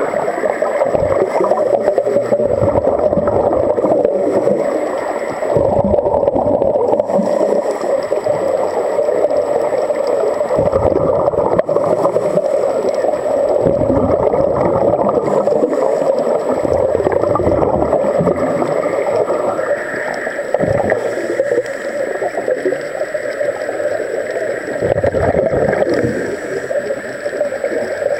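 Underwater sound picked up by a diver's camera: a steady drone with repeated low gurgling rushes of scuba regulator exhaust bubbles.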